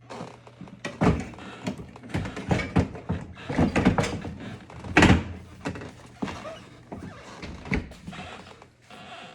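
Irregular knocks, clicks and thunks of parts being handled and fitted while a dishwasher's control panel and door are worked on, with the loudest thunks about a second in and about five seconds in.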